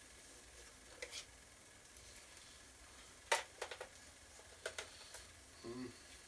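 Faint scattered clicks and light clatter of small objects being handled while rummaging for a missing AA battery, with one sharp click about three seconds in the loudest.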